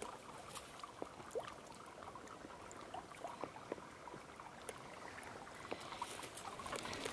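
Faint trickling and dripping water, with many small ticks and plinks scattered throughout, as a wet trout is held in a hand over a mesh landing net.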